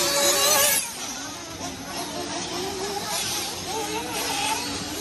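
Several 1/8-scale nitro buggy engines running on track, a high buzzing whose pitch rises and falls as the cars rev and back off. A loud hissing burst comes in the first second.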